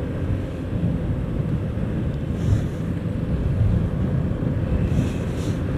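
Wind rushing over the microphone and the steady engine and road noise of a Honda scooter cruising at about 40 km/h.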